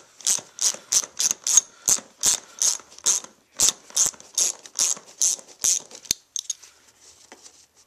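A 3/8-inch hand ratchet clicking in a quick, even run of about three clicks a second as it is swung back and forth to back out a bolt from the side of a racing seat. The clicking stops about six seconds in, leaving only a few faint ticks.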